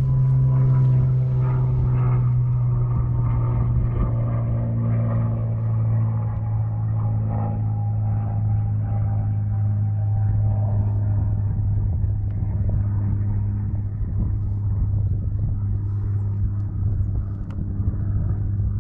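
A boat motor running steadily at an even speed, a loud low hum whose upper overtones sink slightly in pitch.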